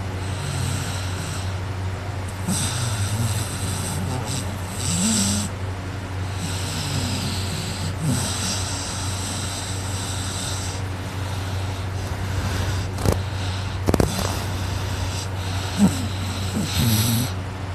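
A man snoring loudly while asleep on his back, one noisy breath after another at uneven intervals, with a few sharp clicks in the second half.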